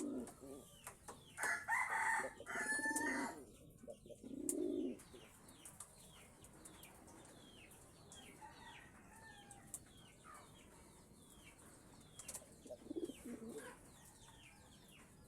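Pigeons cooing in short, low, pulsing bursts: near the start, again about four seconds in, and once more near the end. A louder, higher call that sounds like a rooster crowing comes around two seconds in. A small bird's short, falling chirps repeat steadily throughout.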